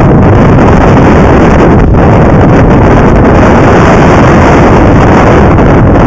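Strong wind buffeting an action camera's microphone on a heeled sailing yacht: a loud, continuous rumble close to clipping, with the rush of waves along the hull underneath.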